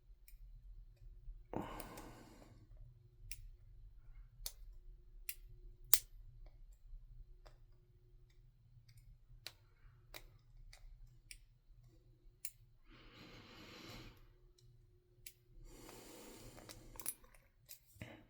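Lock pick and tension wrench working a small 30mm Garrison padlock: scattered sharp clicks and ticks of steel on the pins and keyway, the loudest about six seconds in. There are a few heavy breaths through the nose between them.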